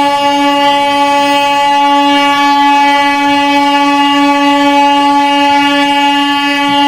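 Indian Railways locomotive horn sounding one long, steady, loud blast on a single pitch.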